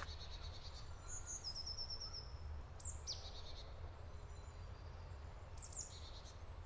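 Faint forest ambience: small birds chirping high up, with a quick trill about a second and a half in, a falling call near three seconds and more calls near the end, over a low steady rumble.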